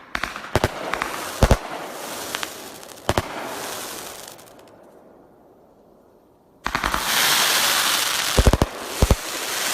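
A 500-gram, 21-shot consumer fireworks cake firing aerial shells: sharp bursts with crackling tails, dying away to a lull. Partway through, a new volley breaks out with dense crackling and several more booms.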